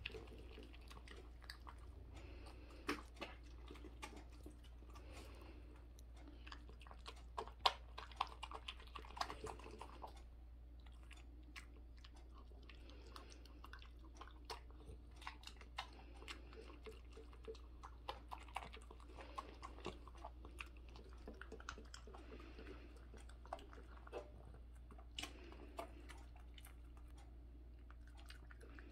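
A poodle eating chicken feet mixed with kibble from a bowl: faint chewing and biting, with irregular crunches and clicks, busiest around a quarter of the way in.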